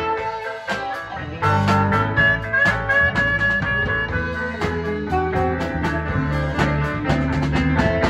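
Live band playing a bluesy, swinging jazz tune: saxophone over electric keyboard, bass line and a steady drum beat, with a long held high note near the middle.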